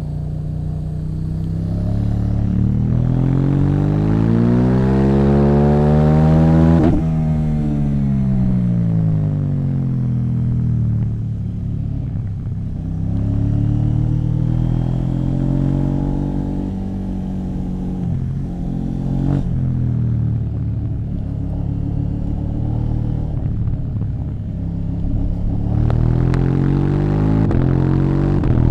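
KTM 790 Duke's parallel-twin engine through an Akrapovic exhaust, revving up and back down three times, the pitch climbing and falling smoothly each time, with a sharp crack at the top of the first rise about seven seconds in.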